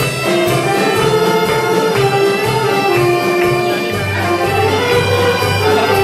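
Live wind band of saxophones, clarinets and flutes playing a corridiño, a Galician folk dance tune, with a saxophone out front carrying the melody over a steady beat.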